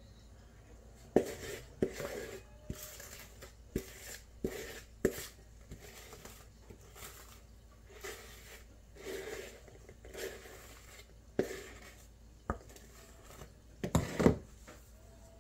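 A spoon scraping and knocking against a mixing bowl and cake tin as cake mixture is scraped out and spread, with irregular sharp taps and short scrapes between them and a louder cluster of knocks near the end.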